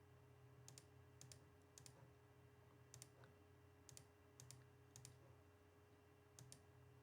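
Faint computer mouse clicks, scattered irregularly, many as quick double clicks of press and release, over a low steady hum.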